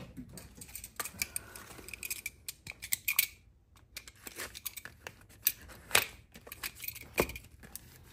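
A package of new tappets (cam followers) being opened by hand: an irregular run of sharp clicks and short scrapes of packaging.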